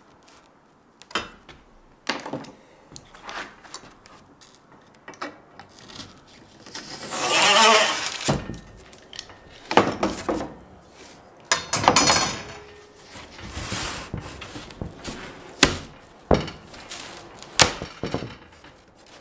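Cutting and handling a sheet of XPS foam board against a metal straightedge: a series of knocks and clicks, with a few longer scraping passes, the loudest about seven seconds in and another near twelve seconds.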